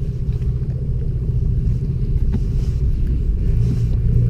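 Boat engine running steadily, a low drone with a hum that grows stronger near the end. A single click about two and a half seconds in.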